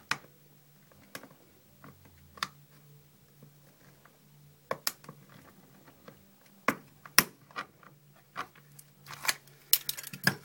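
Sharp clicks and scrapes of metal prying tools, a hooked butter knife and a wood chisel, working against an iPhone 2G's aluminium back housing to pop the cover off. The clicks come singly, a second or two apart, with a quick run of them near the end.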